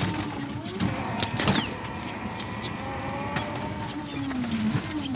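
A small vehicle's engine running steadily under a low rumble of road and wind noise, with a few sharp knocks in the first second and a half.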